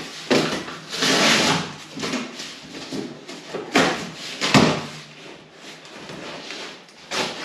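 Cardboard mattress boxes being opened and handled: irregular rustling and scraping of cardboard, with a couple of sharp knocks near the middle.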